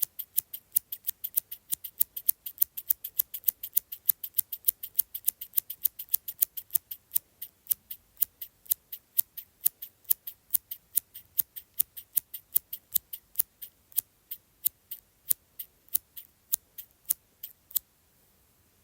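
Small scissors snipping over and over in an even rhythm, about three crisp snips a second. The snipping stops near the end.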